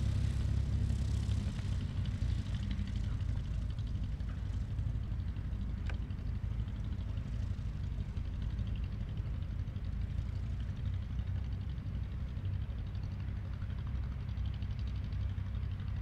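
Single-engine 1975 Mooney M20F's piston engine and propeller running at low taxi power, a steady low engine note that eases a little after about a second and a half as the plane moves away.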